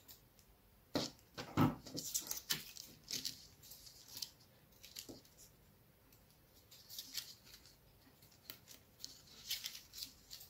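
Thin sheets of paper rustling and crinkling as cut strips are folded over one another and pressed together by hand, with two soft knocks about a second in.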